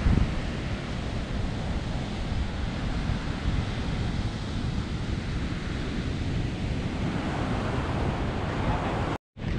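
Ocean surf washing on the shore, with wind buffeting the microphone. The sound cuts out completely for a moment near the end.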